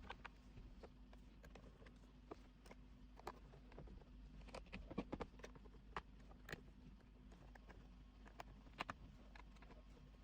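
Faint, scattered clicks and light taps of small parts and tools being handled while working on a white MacBook's insides, over a low steady hum; the loudest tap comes about halfway through.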